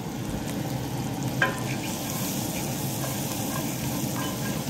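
Sliced onions sizzling steadily in olive oil in a Finex cast iron skillet while a wooden spoon stirs them, scraping and tapping on the pan, with one sharper knock about a second and a half in.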